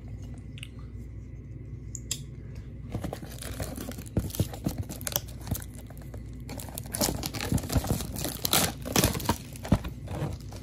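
Clear plastic shrink wrap being torn and peeled off a cardboard trading-card box, crinkling and crackling. A few scattered clicks at first, then it gets busier from about three seconds in, thickest near the end.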